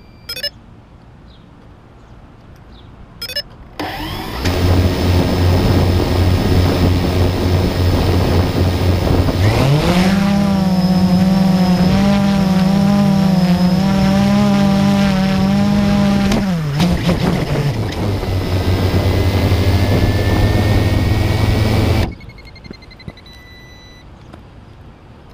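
A motor running very close to the microphone starts abruptly. About a third of the way through its pitch rises to roughly double and holds there, wavering, before dropping back. Near the end it cuts off suddenly.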